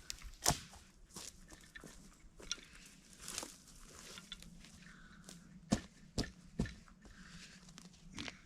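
Footsteps on a mossy forest floor, with light rustling and scattered sharp cracks of twigs snapping underfoot, the loudest about half a second in and three in quick succession around six seconds.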